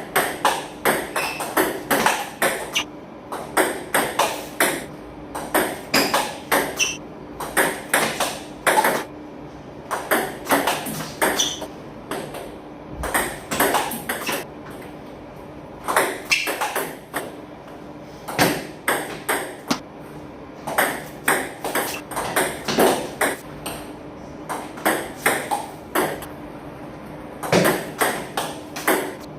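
Table tennis balls being hit with paddles and bouncing on the table during practice drills: a quick, uneven run of sharp clicks, about two or three a second, over a faint steady hum.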